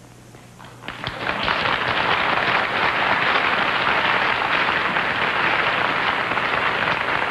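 Studio audience applauding, starting about a second in after a quiet moment and holding steady.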